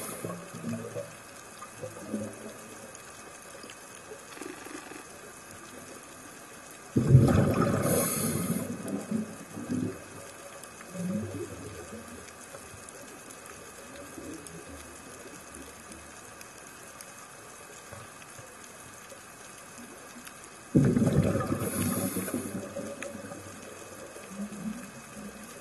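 Scuba diver's exhaled bubbles from the regulator, heard underwater: sudden bubbling bursts about two seconds long that fade out, roughly every fourteen seconds. One is ending at the start and others come about seven and twenty-one seconds in, with a faint gurgle and hiss between them.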